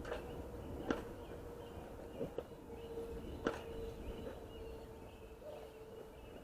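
Quiet outdoor background with a faint steady hum and four light clicks in the first half, small knocks of things being handled.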